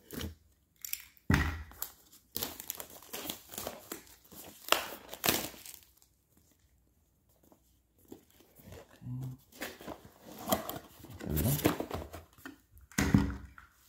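Clear plastic wrap on a cardboard product box being slit with a utility knife and pulled off, crinkling and tearing in several bursts, with a short quiet pause in the middle.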